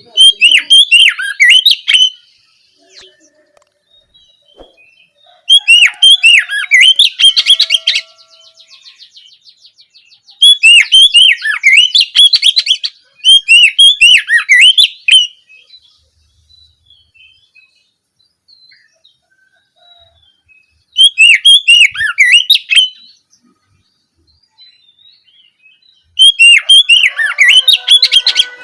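Oriental magpie-robin (kacer) singing loud, rapid phrases of varied high notes, each about two seconds long, six times with pauses of a few seconds between.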